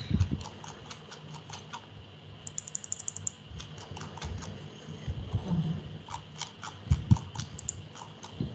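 Computer keyboard typing and clicking in scattered taps, with a quick run of about ten clicks near the middle and a few low knocks.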